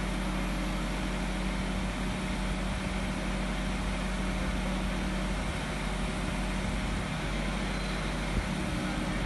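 Truck-mounted crane's diesel engine running steadily as it holds the load, a constant low hum. One light knock about eight seconds in.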